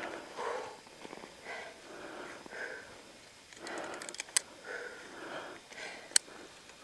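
A mountaineer breathing hard, a breath about every second. Sharp metal clicks of carabiners being handled on a climbing harness come in a cluster about four seconds in and once, loudest, near six seconds.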